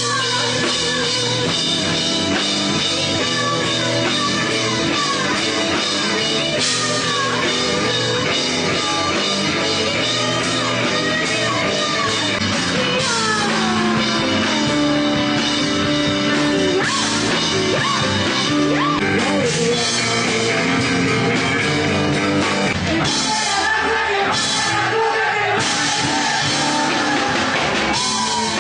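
Live rock band playing: loud distorted electric guitars and drum kit, with a voice singing and yelling over them.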